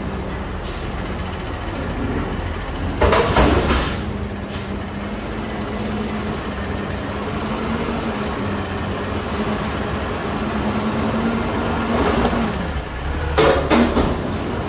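Peterbilt front-loader garbage truck's engine running, its speed raised and held while the hydraulic forks lift a dumpster up over the cab, then dropping back. A loud burst of noise comes about three seconds in, and several sharp metal knocks near the end as the bin reaches the top.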